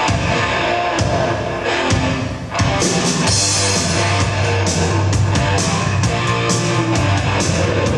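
Loud rock music with guitar and drums. It dips briefly about two and a half seconds in, then comes back in with a heavy bass line and a steady drum beat.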